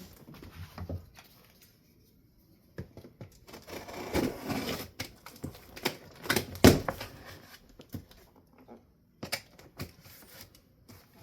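Cardboard box being opened and handled: irregular rustles, scrapes and knocks, with a longer scraping rustle around four seconds in and a sharp knock about six and a half seconds in.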